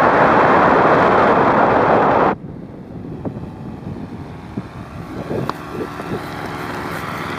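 Wind buffeting the microphone loudly for about two seconds, cutting off abruptly, followed by a paramotor engine's steady drone under lighter wind noise.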